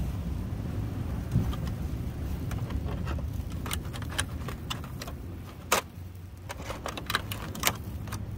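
Sharp, scattered crackles and clicks at a disposable foil charcoal grill cooking steak and sausages, mostly in the second half, over a steady low rumble.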